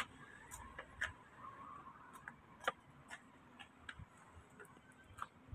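Faint, irregular clicks, about one or two a second and unevenly spaced, over a quiet background.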